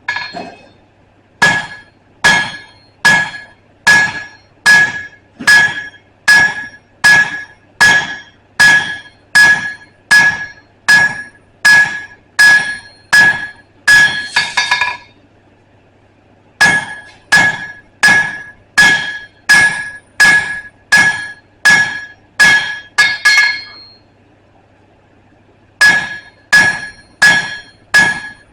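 Hand hammer striking steel on an anvil in a steady rhythm, a little more than one blow a second, each blow ringing at the same pitch. The hammering stops briefly twice and then resumes.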